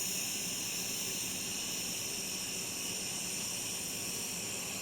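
Steady hiss of a touch-start TIG welding arc on stainless steel, with filler rod fed in by hand.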